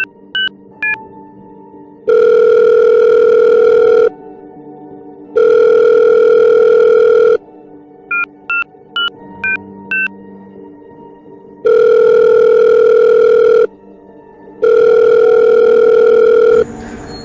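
Mobile phone keypad beeps as a number is dialled, then the ringing tone of the call, two long rings of about two seconds each. The dialling beeps come again about eight seconds in, followed by two more rings: the call goes unanswered and is redialled.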